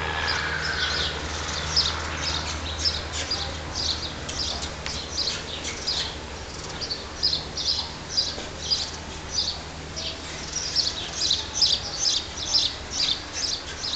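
Small birds chirping busily, with many short, high chirps several times a second, thickest in the second half.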